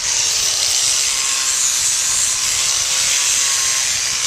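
Electric power grinder running against a horse's hind hoof, grinding down the hoof wall: a steady, even gritty hiss over a faint motor whine.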